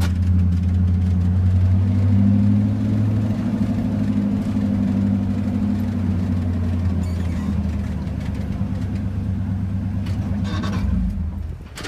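Steady low rumble of a car engine running, heard from inside the car, dying away about eleven seconds in.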